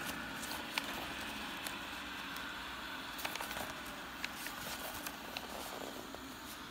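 Pages of a paperback picture book being turned and pressed flat by hand: soft paper rustling with scattered light crackles and ticks.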